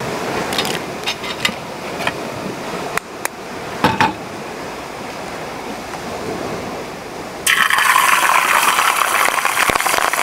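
A few metal clinks at a small camping cook pot, then an egg dropped into the hot pot on a gas cartridge stove starts sizzling suddenly and loudly about three quarters of the way in, a dense steady frying hiss.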